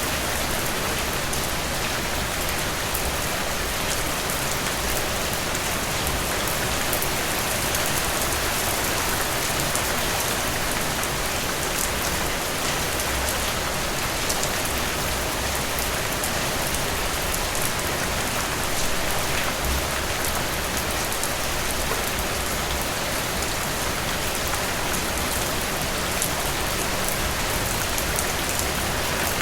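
Heavy rain falling steadily, a dense even hiss with fine drop ticks and no let-up.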